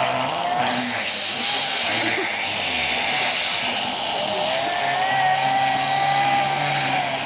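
Vacuum cleaner running, a steady rushing hum with a motor whine that wavers in pitch.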